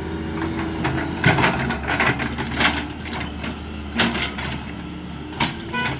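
Heavy diesel vehicle engine running steadily, with scattered clicks and knocks over it.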